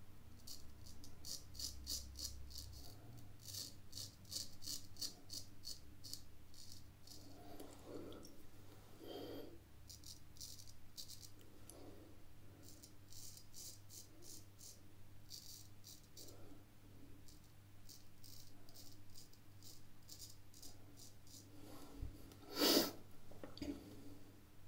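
Drew Dick 8/8 smiling straight razor scraping through lathered stubble on the first pass: runs of quick, crisp scratchy strokes, in several bursts. One brief louder knock near the end.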